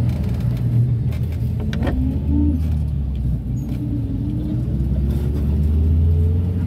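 Minibus engine and road noise heard from inside the cabin, a steady low rumble, with the engine note rising in pitch through the second half as the bus picks up speed.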